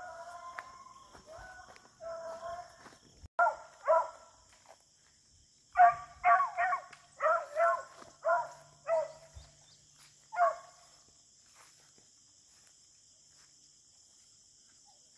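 Beagles giving tongue while running a rabbit's scent line: short, pitched barks and bays come in quick runs, thickest in the middle, with a last one about ten seconds in. A steady high drone of insects runs underneath.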